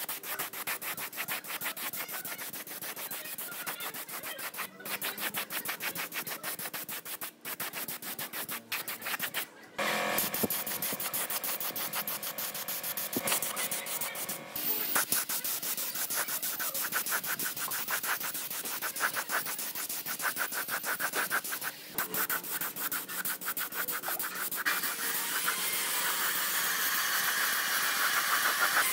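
Fast, even rubbing strokes on a surface, many to the second, like hand sanding. The strokes break off and start again several times. A stretch about a third of the way in carries a ringing tone under them, and they grow louder near the end.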